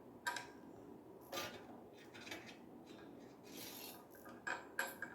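Shower head and filter parts being handled and turned by hand: a few light clicks and knocks with a brief rubbing scrape in the middle.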